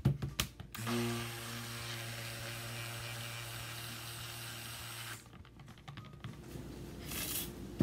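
Stick blender running in cold process soap batter in a plastic pitcher, mixing in the lye solution. A few light knocks come first, then a steady motor hum starts about a second in and stops about five seconds in.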